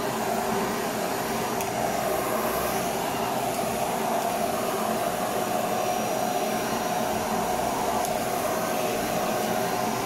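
Canister vacuum cleaner running steadily with a constant hum, its floor nozzle cleaning a corrugated-cardboard cat scratcher bed.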